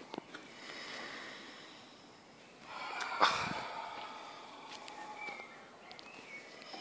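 A man breathing hard while straining through a wall sit, with one loud breath about three seconds in.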